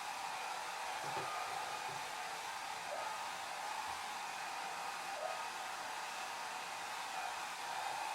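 Hair dryer blowing steadily: an even, hissing rush of air with a faint motor hum, unchanging throughout.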